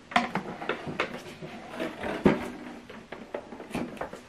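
Irregular light clicks and knocks of an HDMI cable being handled and plugged into a port on the back of a TV, with one louder knock a little past halfway.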